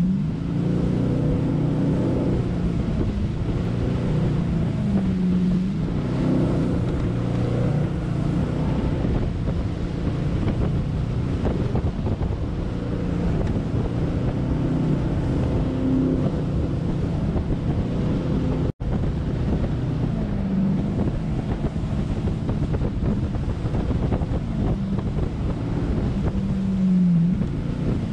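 Jet boat's engine running at speed through whitewater, its pitch sliding up and down with the throttle, over wind buffeting the microphone and rushing water. The sound cuts out for an instant about two-thirds of the way through.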